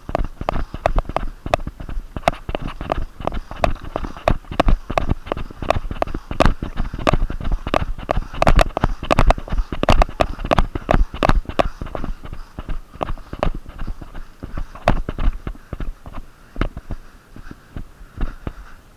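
Quick, uneven footsteps of a person on the move, heard up close, several knocks and thumps a second, easing off a little near the end.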